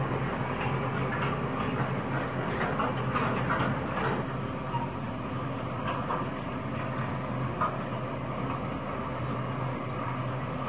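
Freight wagons of an SCT train rolling slowly across an iron-girder viaduct: a steady low hum under irregular higher-pitched clatters and squeaks from the wheels, busier in the first half.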